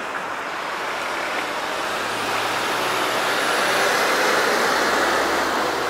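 Small city bus driving past close by, its engine and tyre noise swelling to a peak about four seconds in, over steady street traffic.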